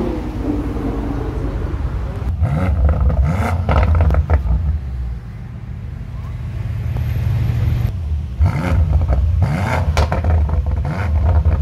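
BMW saloon's engine revved through its quad-tip exhaust in two sets of quick blips, about two seconds in and again about eight seconds in, with sharp cracks among them, settling to a steady idle between.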